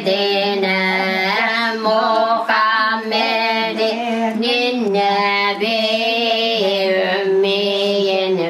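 A single voice chanting a slow, ornamented religious melody, unaccompanied. It holds long notes and bends between them, pausing briefly for breath every second or two.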